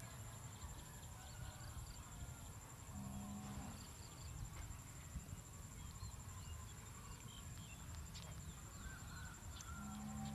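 Grassy field ambience: a steady high-pitched insect drone, scattered small bird chirps and a low rumble, with one short low honk-like animal call about three seconds in.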